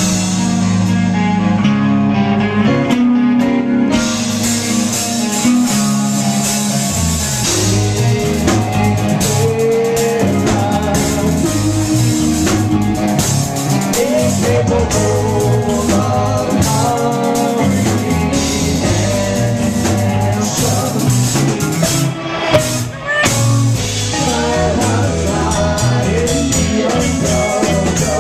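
Live rock band playing loudly: electric guitar and singing over a drum kit, with the drums and cymbals coming in about four seconds in.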